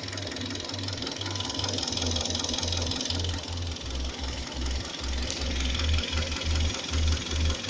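Warmed-up engine running with a rhythmic knock, a few low thuds a second over the engine's steady rattle.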